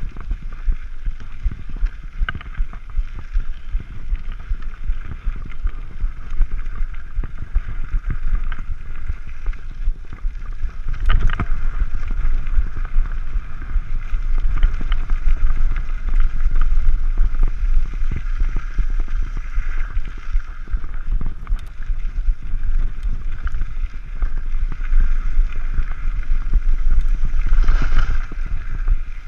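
Mountain bike ridden along a dirt singletrack, heard from a handlebar camera: wind buffeting the microphone over the rumble and rattle of the bike on the rough trail. Louder jolts about 11 seconds in and again near the end.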